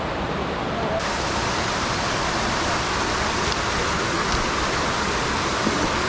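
Steady rush of cascading creek water pouring over rocks. About a second in, the hiss becomes brighter and fuller.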